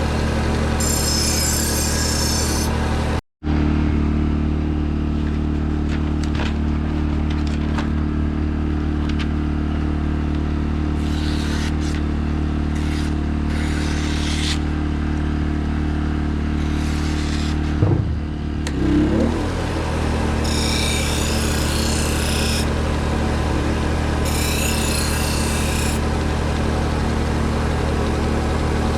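Small belt grinder's motor running steadily, with about six short spells of hiss as steel is drawn across the abrasive belt. The hum drops out for an instant about three seconds in.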